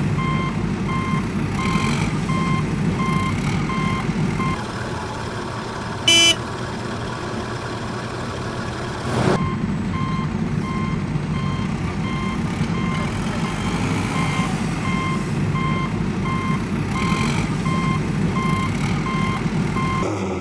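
Heavy machine engine running steadily with a reversing alarm beeping about twice a second. The beeping pauses for a few seconds in the middle, where there is a brief, loud high-pitched blast and then a sharp knock, and resumes until near the end.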